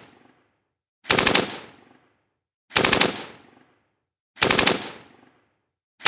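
7.62 mm Bren light machine gun firing short bursts, three full bursts about every 1.6 s with a fourth starting near the end, each burst a quick string of shots trailing off in echo.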